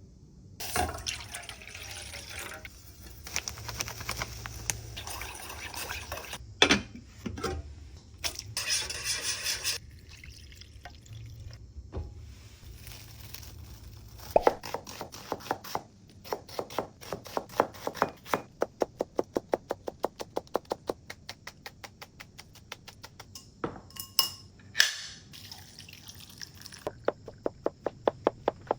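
Kitchen sounds of food prep: water running and pouring for about the first half, then a knife chopping on a cutting board in a quick, even rhythm of about three strokes a second.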